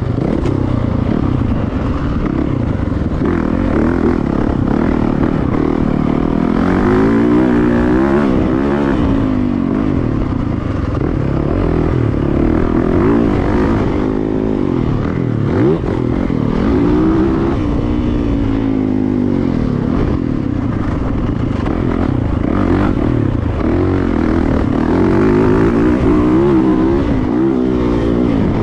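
Yamaha YZ450FX dirt bike's 450cc four-stroke single-cylinder engine being ridden hard, revving up and down again and again as the rider accelerates, shifts and backs off.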